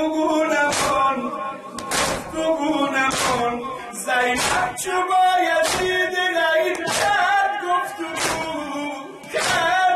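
Men beating their chests in unison (matam), about one loud slap every second and a bit, under a male voice singing a Persian mourning noha through a microphone.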